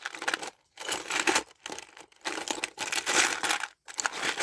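Small loose metal clock parts rattling and clinking as a hand rummages through them in a plastic tub, in several bursts with short pauses between.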